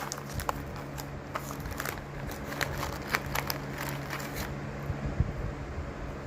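Plastic packaging crinkling and crackling as a sample packet that won't open is worked at by hand; the crackles stop about four and a half seconds in. A steady low hum runs underneath.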